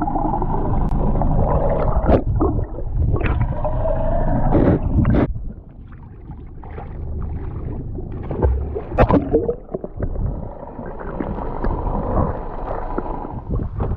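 Sea water splashing and gurgling around a handheld camera dipped at the surface, muffled and bubbling, with irregular knocks. The level drops suddenly about five seconds in, then builds again.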